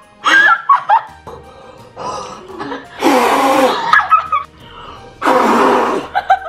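Two girls laughing loudly in several bursts, with light background music playing underneath.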